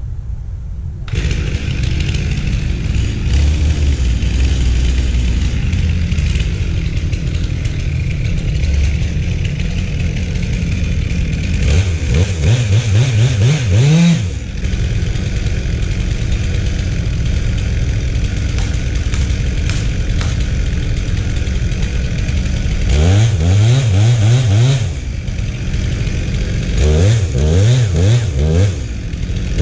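Chainsaw making the felling cut at the base of a tree trunk: it comes up to full throttle about a second in and runs on steadily, then several times in the second half drops off and revs back up.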